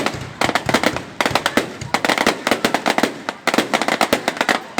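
Fireworks going off: rapid volleys of many sharp cracks and bangs in quick succession, coming in clusters about a second long with brief lulls between.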